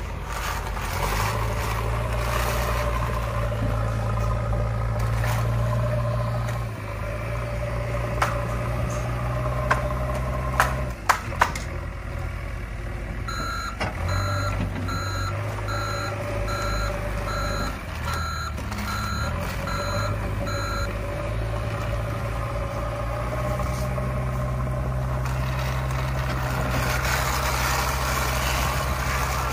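Toy JCB backhoe loader's electronic sound effects: a steady low engine drone that shifts in level every few seconds, joined partway through by a run of reversing beeps for about seven seconds. A few sharp knocks come shortly before the beeps.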